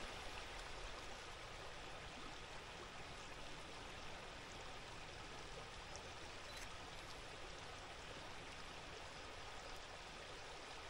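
Faint, steady rush of running water, with one faint click about two-thirds of the way through.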